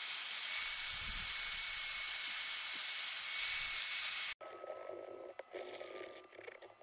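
Angle grinder with an abrasive disc grinding a small steel part held in a vise: a steady hiss over a high motor whine, cutting off suddenly about four seconds in. After that, faint scraping of a small hand file on the metal.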